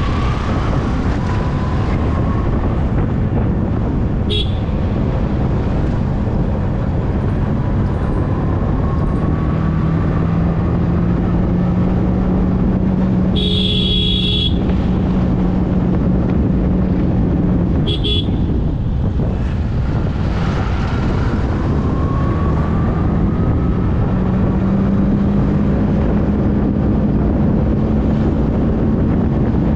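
Road and wind noise of a motorcycle underway in traffic, with a steady engine tone that rises slowly in pitch. A vehicle horn honks for about a second midway, with two short beeps before and after it.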